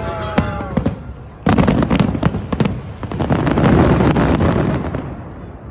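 Fireworks going off: a run of sharp bangs and cracks, with a loud volley about one and a half seconds in building to dense crackling near the middle, then dying away near the end.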